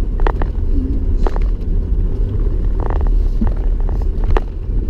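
Steady low rumble of a car on the move, heard from inside the cabin, with a few short clicks and knocks.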